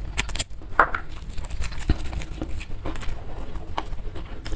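Close-miked chewing of a mouthful of food, with wet mouth clicks and smacks coming irregularly and a brief squeak about a second in.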